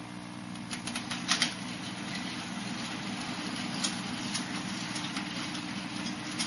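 Model railway goods train running: the locomotive's electric motor hums steadily while the wheels tick over the rail joints, with a quick cluster of ticks about a second in.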